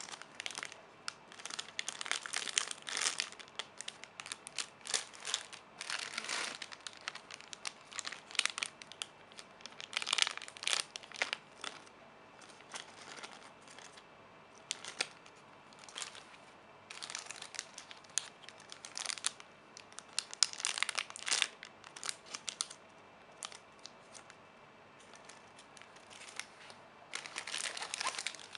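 Plastic packaging crinkling in irregular handfuls as it is handled, with short pauses between.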